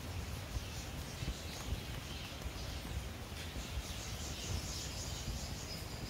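Steady low background rumble with soft, irregular knocks from hands handling a USB cable, and faint high chirping in the background.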